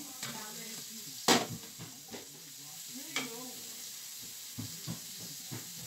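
Mushrooms and bacon sizzling in a frying pan, a steady hiss, while a utensil stirs them, knocking and scraping against the pan. The loudest knock comes just over a second in, with a few lighter ones later on.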